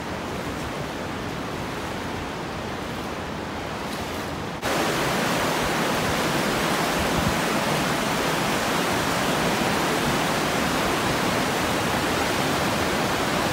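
Rushing river rapids in high water, a steady roar of churning water. About a third of the way in it jumps suddenly louder and fuller.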